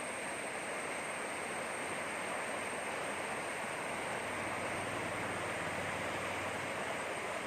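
Steady rushing of flowing water from a stream or waterfall.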